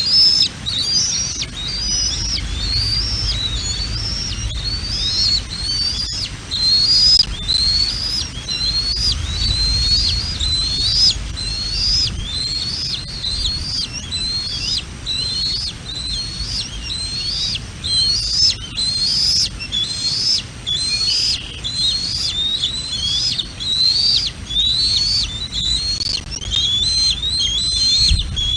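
Juvenile bald eagle giving high, whistled calls over and over, about one to two a second without a break. Wind rumbles on the microphone underneath.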